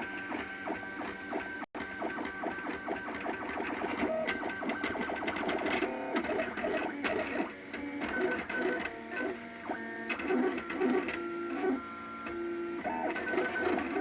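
MakerBot Thing-O-Matic 3D printer printing a layer, its stepper motors buzzing in steady tones that jump from pitch to pitch as the print head changes moves, over fast fine ticking.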